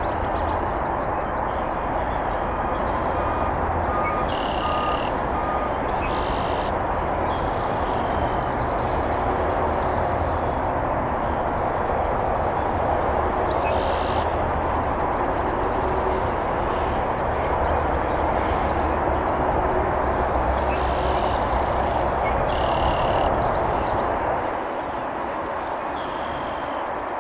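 Steady outdoor rumble and hiss, like distant traffic, with short high bird chirps every few seconds; the low rumble eases near the end.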